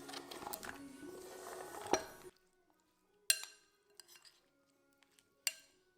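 Background music that stops about two seconds in, followed by two sharp, ringing clinks of cookware, as of a utensil knocking against a pot while vegetables go in, with a few faint clatters between them.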